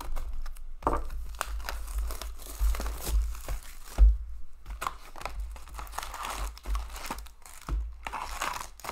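Plastic shrink wrap being slit and torn off a box of hockey trading cards, crinkling and tearing, then the foil card packs inside rustling as they are handled. A single sharp knock about four seconds in is the loudest sound.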